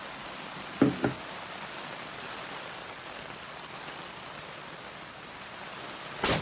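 Steady rushing noise, with two quick knocks about a second in and a short, sharp crack near the end.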